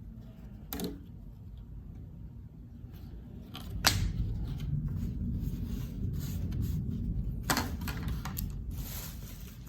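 Handling noises: a few sharp clicks, the loudest about four seconds in, over a low rumbling that grows louder partway through.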